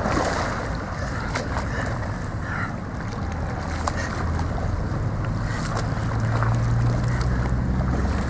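Water splashing, then sloshing and lapping around a person moving through shallow water, with small scattered drips and a low steady rumble underneath that grows in the second half.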